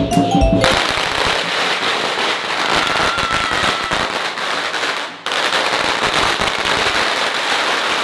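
A string of firecrackers going off in a dense, rapid crackle of small bangs. There is a short break about five seconds in.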